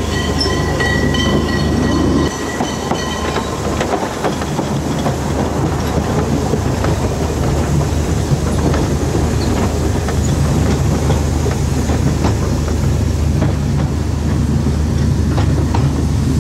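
Narrow-gauge steam train heard from on board: a steady low rumble with the clickety-clack of wheels over the rail joints. A high wheel squeal rings over it for the first three seconds or so.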